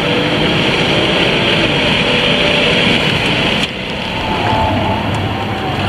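Car being driven fast around a race track, heard from inside the cabin: a steady rush of engine, tyre and wind noise. About two-thirds of the way through it cuts abruptly to another stretch of driving, with a lower engine drone.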